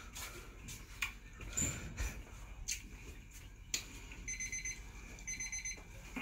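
Digital kitchen timer beeping in quick groups of about four beeps, starting about four seconds in: the set time has run out. Before it, soft rustling and tearing of mandarin peel being stripped by hand.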